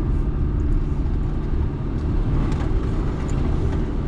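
Vehicle driving steadily along a wet, rutted dirt road: a constant low engine and road rumble, with a few faint clicks about two and a half to three and a half seconds in.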